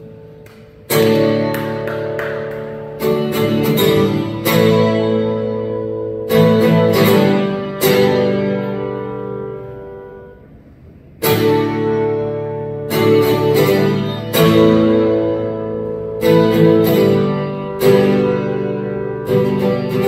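Solo cutaway acoustic guitar playing an instrumental break: chords struck one at a time and left to ring, in two like phrases. The first phrase fades almost away about ten seconds in before a fresh chord starts the second.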